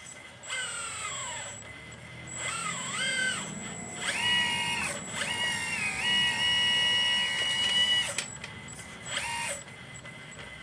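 Whine of the electric motors in a 1/12-scale radio-controlled Liebherr 954 excavator model, starting and stopping in several separate spells as it is worked. The pitch falls in the first spell, wavers in the second and then holds steady through a longer run of about four seconds, with a last short burst near the end.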